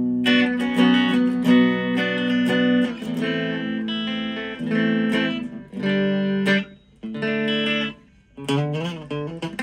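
Epiphone Les Paul SL electric guitar with ceramic single-coil pickups, played with the selector in the middle position so both pickups are mixed. It plays a run of ringing chords and picked notes, with a short break about seven to eight seconds in.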